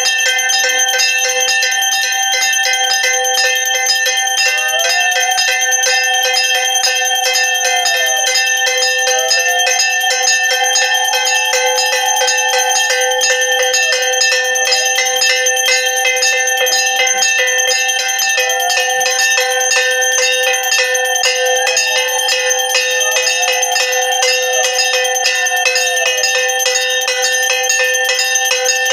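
Puja hand bell rung rapidly and without a break during aarti, a steady metallic ringing. Rising-and-falling tones come and go over it several times.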